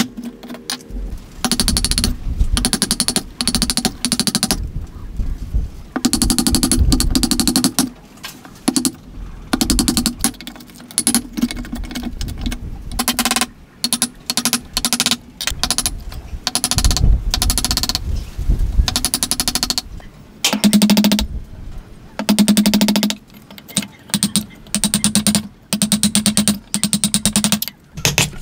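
Wooden mallet driving a chisel into a wooden beam to chop a mortise: bursts of quick knocks with short pauses between them.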